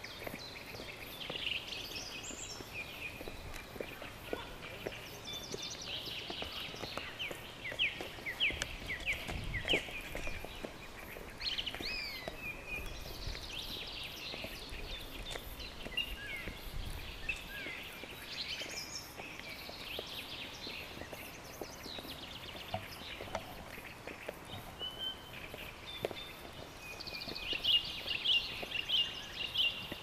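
Several birds singing in woodland, a steady mix of short chirps and trills, with a run of quick repeated notes near the end. Underneath are soft, irregular footsteps on stone steps.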